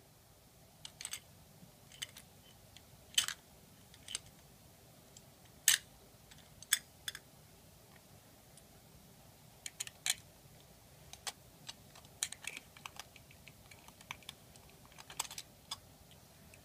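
Scattered light clicks and taps, irregular and well spaced, from the plastic and alloy parts of a die-cast toy front-loader garbage truck as its lift arms and bin are worked by hand.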